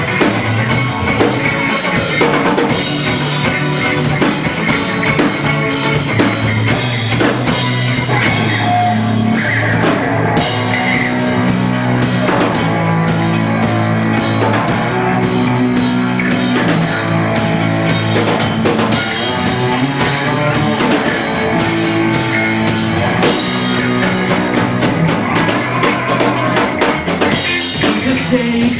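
Rock band playing live: an instrumental passage with drum kit and guitar driving a steady beat under sustained low notes.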